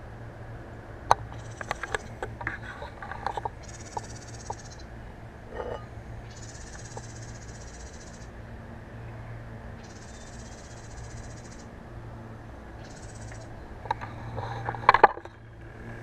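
Ceramic lid of a hanging birdhouse being lifted and handled, with scattered clicks and scrapes, then a louder cluster of knocks and clatter near the end as it is set back in place. Short bursts of high hissing come and go every few seconds.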